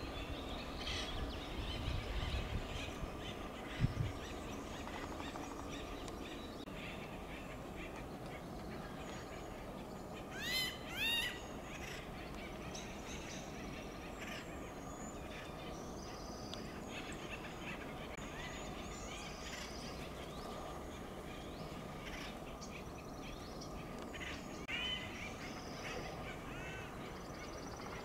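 Acorn woodpeckers calling: two loud bursts of rapidly repeated, arching calls about ten seconds in and a shorter burst near the end, with softer scattered calls throughout. A few low thumps come in the first four seconds.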